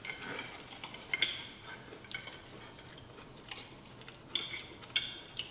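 Knives and forks clinking and scraping on plates as pieces of fried chicken are cut, a few light scattered clicks.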